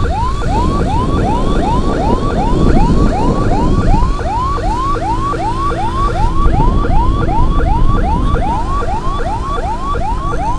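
Electronic emergency siren in a fast yelp pattern: a short rising whoop repeated about three or four times a second, over a low rumble.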